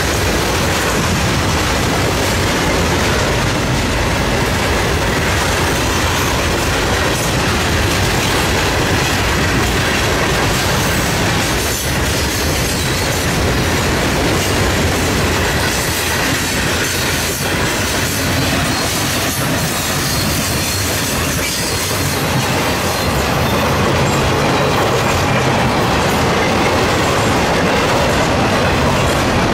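Florida East Coast Railway freight train of hopper cars rolling past close by: a steady, loud running noise of steel wheels on the rails, growing slightly louder over the last few seconds as intermodal flatcars carrying trailers come by.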